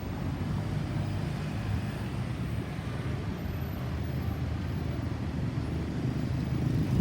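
Road traffic: a motor vehicle's engine and tyres making a steady low rumble.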